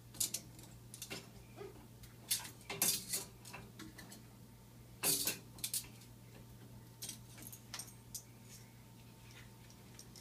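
Dishes and utensils clinking and rattling against the wire racks of a dishwasher as a small child pulls them out: scattered light clinks, loudest about three and five seconds in.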